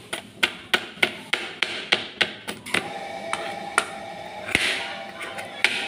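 Knife blade striking a cutting board as it shaves slivers off a block of palm sugar (gula merah). Quick, even taps, about three a second, for the first three seconds, then a few slower, scattered ones.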